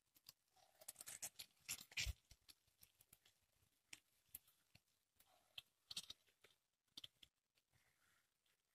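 Faint, irregular crackling and popping of hot oil in a kadai as balls of jackfruit and rice batter deep-fry, busiest in the first two seconds with one sharper pop about two seconds in.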